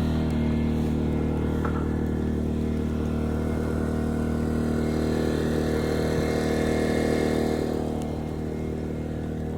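An engine running steadily, dropping slightly in level about eight seconds in.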